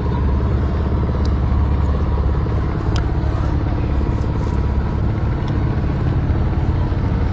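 Motor boat's engine running at a steady pace, a deep even drone, with a few faint clicks over it.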